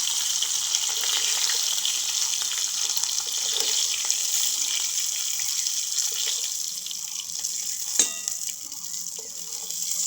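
Hot mustard oil sizzling in a pan as fried hilsa fish heads are lifted out: a steady hiss that eases off over the last few seconds, with one sharp click about eight seconds in.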